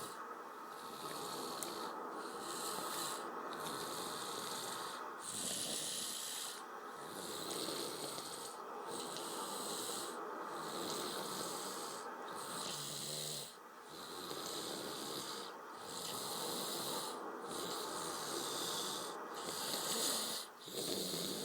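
Snoring: slow, regular breaths with a hissy, rasping snore, one roughly every two seconds.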